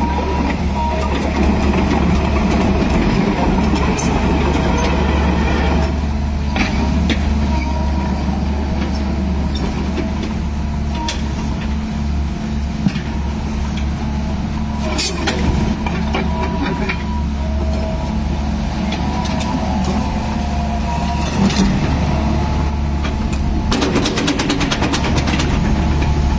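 Sumitomo SH120 crawler excavator running steadily while it travels and turns on its steel tracks, with sharp clanks now and then from the track links, the most at once near the end.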